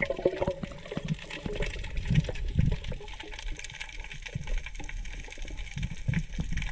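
Underwater sound picked up through an action camera's waterproof housing: a muffled steady water rush scattered with many small clicks, and a few dull low thumps.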